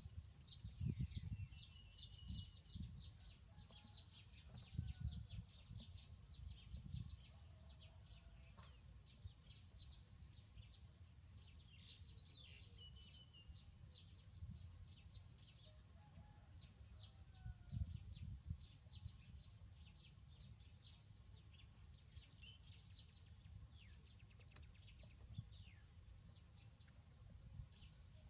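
Many small birds chirping: a dense run of short, high, downward-sweeping chirps with a few brief whistled notes. There are occasional low bumps, the strongest near the start and about 18 seconds in.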